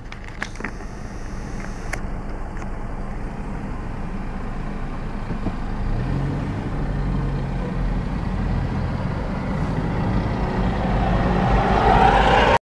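Low vehicle engine rumble that grows steadily louder, with a rising rush of road and wind noise near the end as the car moves off.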